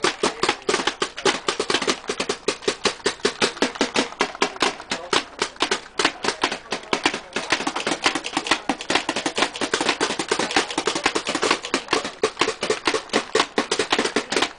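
Paintball marker firing rapidly, a steady string of sharp pops at several shots a second with no pause.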